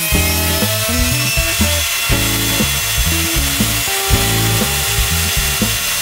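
Background music with a moving bass line, over a table saw running steadily as a board is pushed through it on a sled to cut finger-joint slots.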